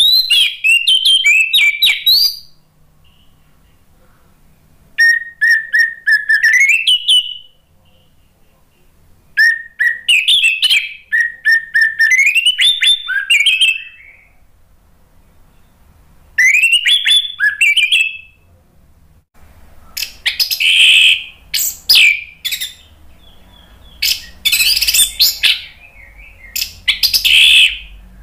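Orange-headed thrush singing loud bursts of varied whistles, slurred notes and quick trills, each phrase one to four seconds long with short pauses between. From about two-thirds of the way through, the phrases turn harsher and scratchier.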